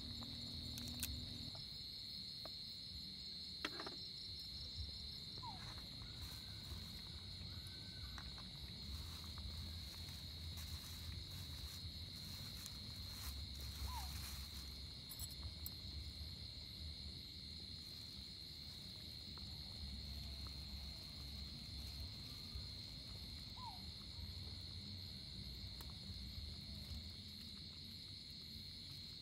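Steady night chorus of crickets and other insects, one unbroken high trill, with a few short chirps and a few faint knocks over it.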